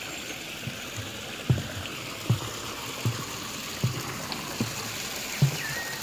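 A steady rush of running water, like a stream, with a soft low thump repeating about every three-quarters of a second. A few short high chirps come in near the end.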